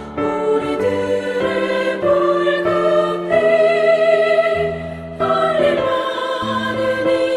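Choir singing a Korean hymn in sustained chords with accompaniment, the harmony changing every second or so.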